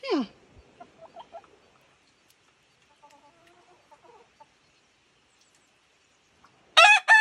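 Rooster crowing loudly near the end, one held call that runs on. Before it come a few quiet clucks from the hens.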